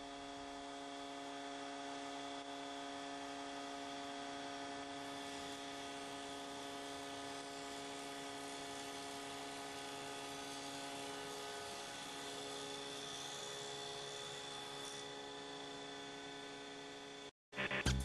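Woodworking bandsaw running at a steady speed, a constant motor hum with several steady whining tones over it, cutting off suddenly near the end.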